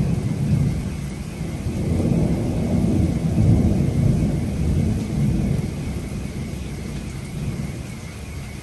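Thunder rumbling low and long, swelling a few seconds in and then slowly fading, over steady rain.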